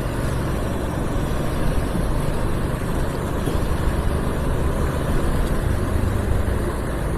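Motorcycle riding on a rain-wet road: a steady low engine hum under a hiss of tyre and wind noise.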